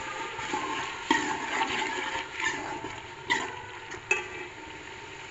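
Metal spoon stirring and scraping spiced onion-tomato masala in an aluminium pot, with a low sizzle of frying and sharp clinks of the spoon against the pot about a second in and again near three and four seconds. This is the bhuna stage: the masala is frying with a splash of water added so the chillies don't burn.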